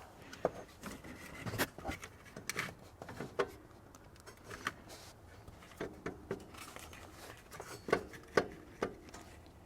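Faint, irregular clicks, knocks and scrapes of a remanufactured alternator being pushed and worked into its mounting bracket on a GM V8, its mounting ears catching because the bracket sleeves are still a little in the way.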